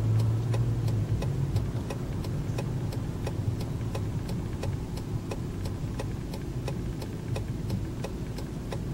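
Car engine running at a low idle, heard inside the cabin, with the turn signal relay ticking at an even rate.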